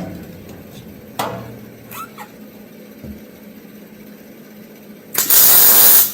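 A few light clicks and knocks of metal being handled, then near the end a MIG welder lays a single tack weld lasting about a second: a loud, even hiss that cuts off suddenly, sounding like a good, steady weld.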